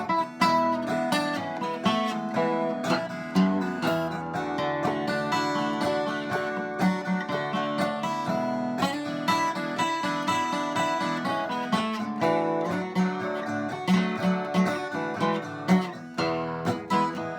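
Acoustic guitar playing an instrumental break, picked notes over strummed chords at a steady pace.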